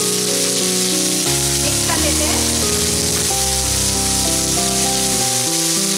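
Green peas sizzling steadily in hot oil in a kadhai, just after being added, with instrumental background music playing alongside.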